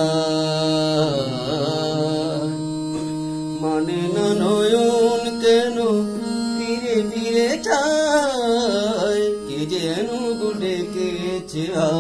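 A man singing a slow melody in long held notes that bend and slide, over a steady sustained drone.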